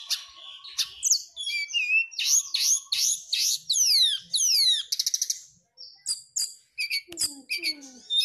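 Brown-chested jungle flycatcher singing a rapid, varied song of sweeping whistles, many of them falling steeply. Its song includes a short buzzy rattle about halfway through, then breaks into scattered short chips, with a couple of lower falling notes near the end.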